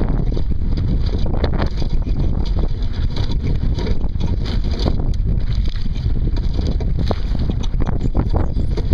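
Heavy wind buffeting the microphone, a constant low rumble, with irregular splashes of choppy water against the hull of a Sunfish sailboat under sail.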